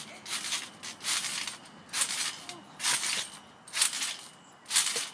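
A trampoline being bounced on: the mat and its springs sound with each landing, about once a second, in a steady rhythm. A faint voice is heard between bounces.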